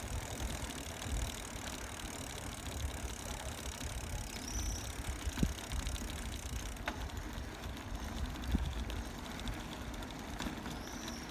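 Wind rumbling on the phone's microphone and road noise from a bicycle being ridden over the street, with a few sharp clicks and rattles from bumps along the way.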